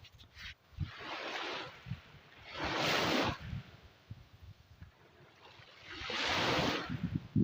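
Ocean waves breaking on the shore: three surges of surf swell up and wash out in turn, about a second in, about three seconds in (the loudest), and near the end. Wind buffets the microphone in low gusts between them.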